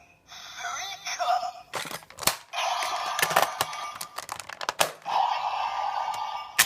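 Toy transformation belt with a Genesis core and the Budo lock seed playing its electronic sound effects through a small, tinny speaker, broken by sharp plastic clicks as the lock seeds are snapped shut and the belt's parts are worked.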